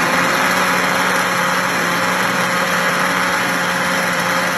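Homelec countertop blender running at a steady speed, its motor giving a constant hum as it blends a thin liquid mix of milk, cream and eggs.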